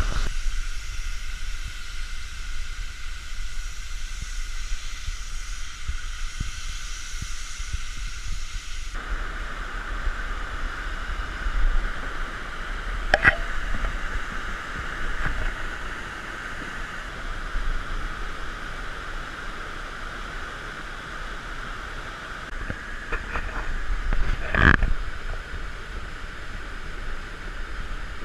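Floodwater rushing in a steady roar with a low rumble beneath it. Two brief sharp sounds stand out, about halfway through and near the end.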